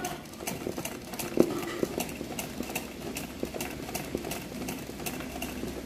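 Sewing machine stitching free-motion embroidery: an even run of needle clicks, about four a second, over a low running hum.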